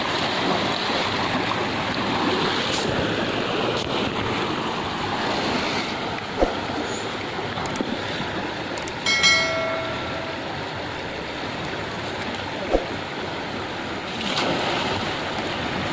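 Fast, shallow river water rushing steadily. Two sharp knocks cut through it, one about six seconds in and one about thirteen seconds in, and a brief pitched tone sounds about nine seconds in.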